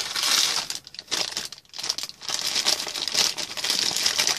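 Clear plastic bag crinkling as multimeter test leads are handled and pulled out inside it. The crinkling comes on and off, with short pauses about one and two seconds in.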